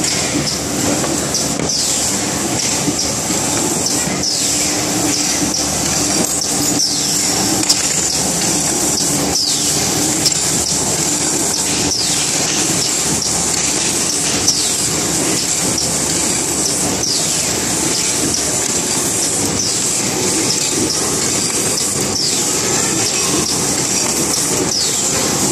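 Automatic hardcover board case making machine running continuously with a loud, steady mechanical clatter. Short falling high-pitched sounds recur every second or two.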